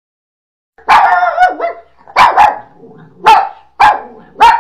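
French bulldog barking: a run of about six sharp barks starting about a second in, the first one drawn out, two close together in the middle.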